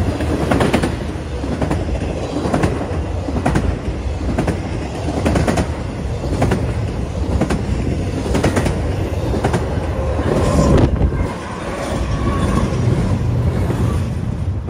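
BNSF double-stack intermodal train rolling past at speed close by: a steady heavy rumble of cars with sharp wheel clicks over rail joints about once a second. A brief tone sounds over it about ten and a half seconds in.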